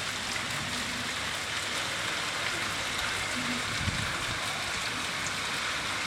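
Steady summer rain falling on gardens and roofs: an even hiss flecked with the patter of individual drops. A brief low bump sounds about four seconds in.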